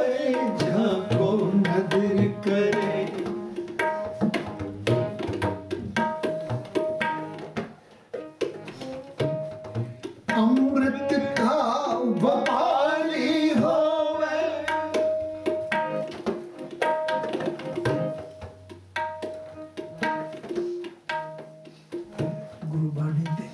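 Sikh kirtan: tabla drums playing a steady, busy rhythm under sustained harmonium and keyboard notes. A man's voice sings a phrase near the start and a longer, rising line from about eleven to fourteen seconds in.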